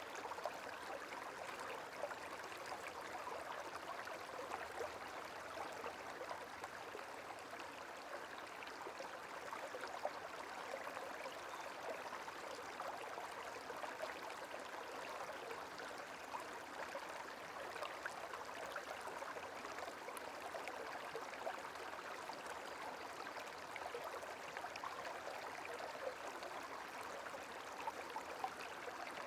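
Gentle flowing water, like a small stream, running steadily with an even babble and many small splashes and trickles.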